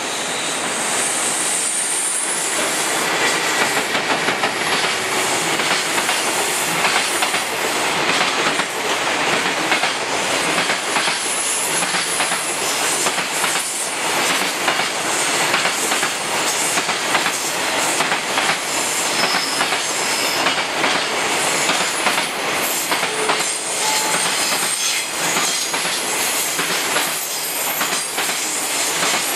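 Container freight train hauled by an EF210 electric locomotive passing close by: a long, steady run of wheels clattering over rail joints, with brief high wheel squeals now and then.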